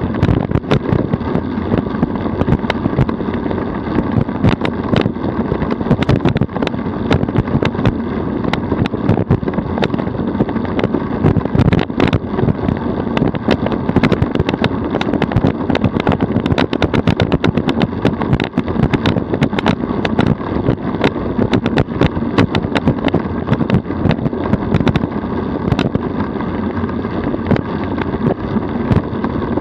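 DF velomobile rolling at speed on an asphalt road: a steady rumble and hiss of tyres and body noise, with frequent sharp clicks and knocks throughout.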